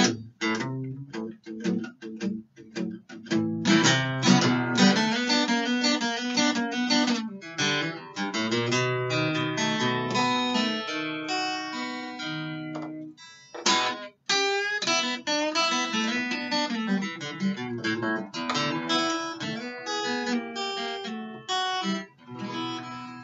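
Acoustic guitar played solo, an instrumental passage of a blues song with no singing: short, separated chord hits in the first few seconds, then busy picked lines and chords, with a brief stop about 14 seconds in.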